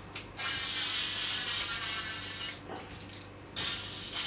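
Aerosol can spraying lubricant onto the stripped rifle's internals in two long hissing bursts of about two seconds each, with a short pause between.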